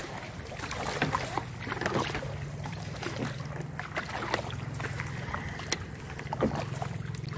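A small boat motor running steadily, with water rushing and splashing along the hull of a wooden outrigger canoe and a few sharp knocks and splashes now and then.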